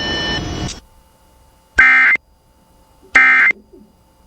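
Emergency Alert System end-of-message data tones: two short, loud, identical warbling bursts about a second and a half apart, the first about two seconds in. This is the SAME data signal that marks the end of the alert. The first second holds a hissy background with steady tones that cuts off suddenly.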